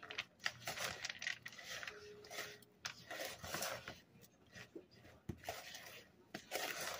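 A spatula stirring and scraping thick cookie-dough frosting with chocolate chips folded through it in a plastic mixing bowl, in short irregular strokes.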